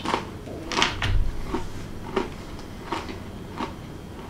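Water biscuit crackers topped with vegan cheese being crunched and chewed with mouths full: a handful of short, irregular crunches.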